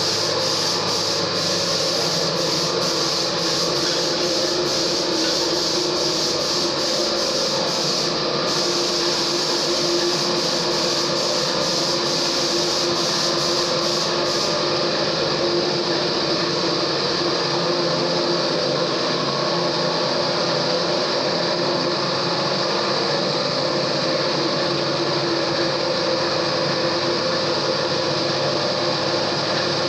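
A machine running steadily and loudly, a constant hum under a hissing whir. A faint crackle at the top of the sound stops about 14 seconds in.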